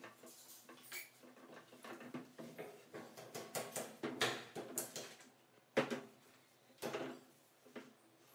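Light, irregular knocks, taps and scuffs of a solid wooden panel door being handled and stood up into its frame, with a few sharper knocks in the second half.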